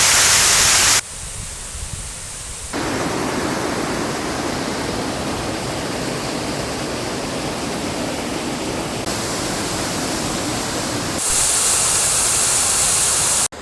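Steady rush of falling water from waterfalls. Its loudness and tone jump abruptly several times, at about one second, near three seconds, at nine and at eleven seconds.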